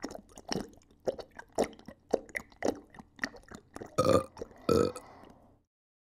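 Siamese kitten drinking water from a glass mug: short wet gulping sounds about twice a second, then two louder burps about four and five seconds in, after which the sound cuts off.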